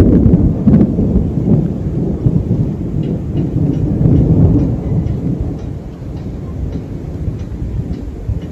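Long rolling rumble of thunder, loudest at first and dying away over the last few seconds, with light rain in the background.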